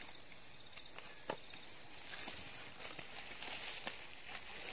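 Footsteps and handling rustle in dry leaf litter, with scattered snaps and clicks of twigs, the sharpest about a second in. A steady high-pitched insect chorus runs underneath.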